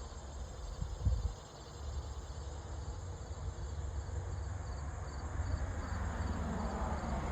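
Insects chirping in a steady, evenly repeated high-pitched rhythm, about two to three chirps a second, over a low outdoor rumble, with a single soft knock about a second in.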